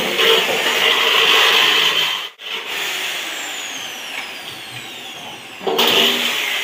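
Electric hand drill running as it bores holes in a sheet-metal box frame, cutting off about two seconds in. A quieter stretch follows with a high whine slowly falling in pitch, and near the end a loud power tool, an angle grinder, starts up.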